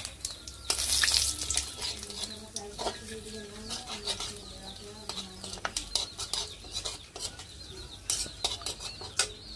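Whole spices (cumin seeds, dried red chilli, cinnamon and bay leaf) sizzling in hot oil in a steel kadai, with a loud burst of sizzling about a second in. A metal spatula scrapes and clicks against the pan as the spices are stirred.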